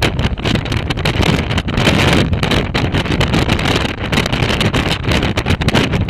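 Storm-force wind buffeting the microphone: a loud, continuous rushing rumble that rises and falls with the gusts.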